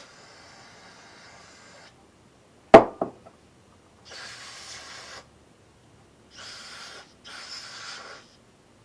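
Four short hissing blasts of pressurized spray, the first nearly two seconds long and the rest about a second or less, the last two close together. About three seconds in comes a single sharp knock, the loudest sound, with a smaller knock just after it.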